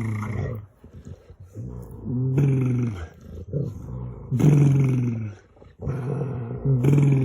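A dog making drawn-out, warbling "woo-woo" vocalizations, about five in a row, each lasting around a second, with short pauses between.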